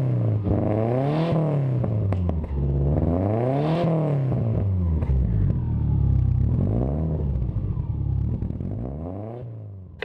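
Turbocharged Subaru Forester's flat-four engine free-revving: the revs are blipped up and let fall back about four times, then the sound fades out near the end.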